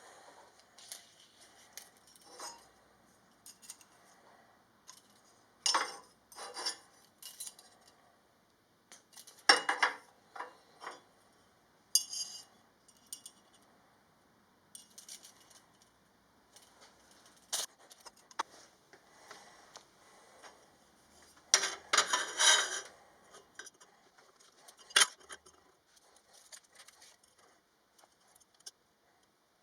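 Metal tools and parts being handled on a workbench: scattered light clinks and taps, with busier clatters about ten seconds in and again a little past twenty seconds.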